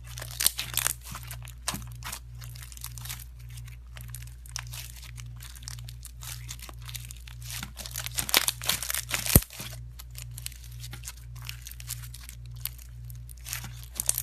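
Crunchy slime being played with, giving dense irregular crackling and popping, with one sharp, louder pop about nine seconds in, over a low steady hum.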